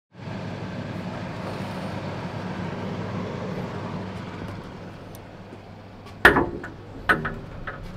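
A steady hum, then a glass door being unlatched and opened onto a wooden deck: one loud clack about six seconds in, followed by a few lighter knocks.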